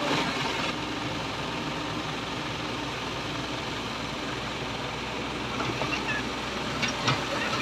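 Komatsu PC78 excavator's diesel engine running steadily, with a few short clicks near the end.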